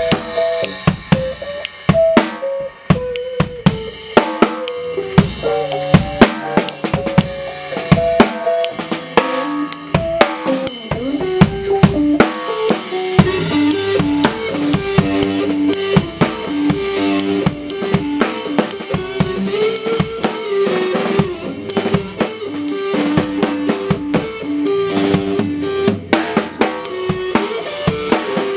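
A band playing an instrumental passage: a drum kit with a crisp, well-tuned snare drum and bass drum hitting steadily under a melodic line of stepping notes.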